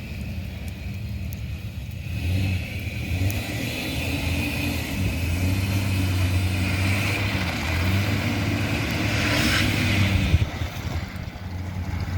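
Pickup truck engine running, its pitch rising and falling a little, cutting off about ten seconds in.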